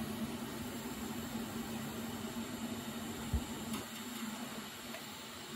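TIG welder running: a steady hum with an even hiss. A single dull bump comes a little past halfway.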